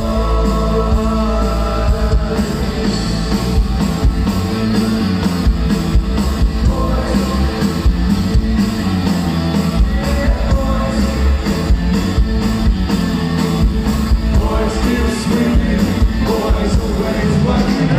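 Live rock band playing loudly, with electric guitars over a steady drum beat and a male lead vocal at times.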